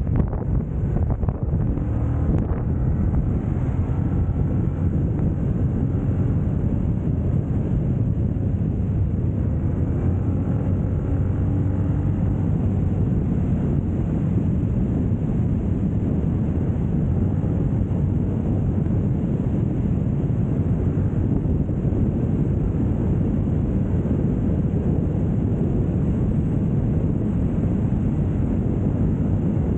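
Steady wind rushing over the microphone of a motorcycle riding at speed, with a low engine hum underneath.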